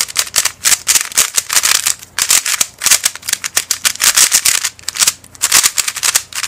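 QiYi Bullfight 3x3 speed cube turned rapidly by hand for its first turns: a near-continuous run of plastic clicks and clatter as the layers snap round. It turns very fast and smooth but feels dry, in need of lube.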